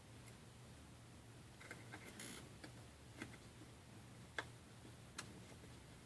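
Near silence with a few faint, scattered small clicks: a tiny screw being driven into an iPhone 5 with a small screwdriver.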